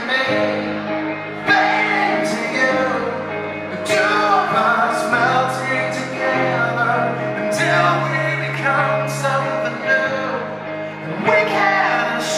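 Live rock band with a male lead singer: a sung melody over long held chords and cymbal hits. Recorded right in front of the stage, the sound is distorted by a loud amplifier blasting at the camera microphone.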